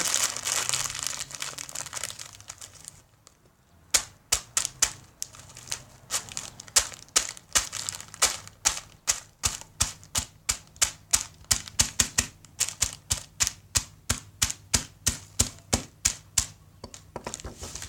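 Crinkling of a chip bag, then a hammer striking a bag of Takis over and over at about three blows a second, crushing the chips to crumbs.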